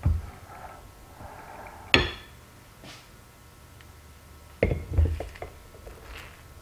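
Metal hand injectors for soft plastic baits knocking and clinking against a glass cup of liquid plastic and an aluminium mold: one ringing clink about two seconds in, then a quick cluster of knocks and small ticks near the five-second mark.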